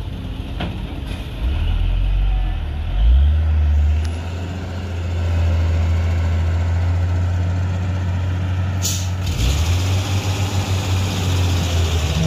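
Heavily loaded diesel cargo truck labouring up a steep grade, its low engine drone loud and steady, with the note stepping up twice in the first few seconds. A short hiss of air, like an air-brake release, comes about nine seconds in.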